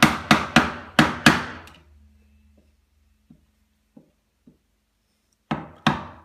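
Wooden mallet tapping a chisel into the wood in quick, regular strikes, about three a second, chopping out a hinge socket in the edge of a box side. The taps stop about two seconds in, with a few faint clicks during the pause, and start again near the end.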